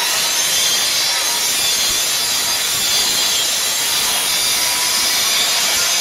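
Mitre saw cutting through a wooden board, the blade running under load with a loud, steady rasp that stops just after the end.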